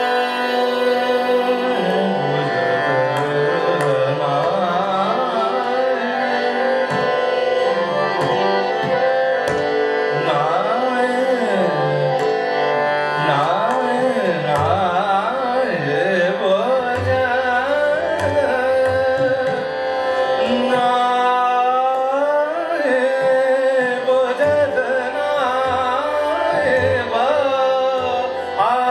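Hindustani classical vocal in Raag Bhageshri: a male voice sings long, gliding, ornamented phrases over a steady tanpura and harmonium drone. Tabla accompaniment keeps a slow rhythm, its bass strokes clearer in the second half.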